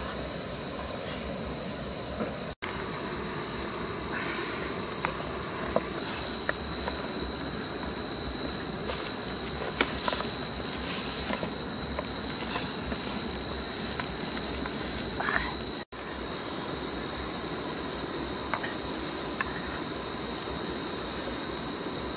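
Insects chirring in a steady, high-pitched drone, over a noisy background with occasional small clicks and knocks.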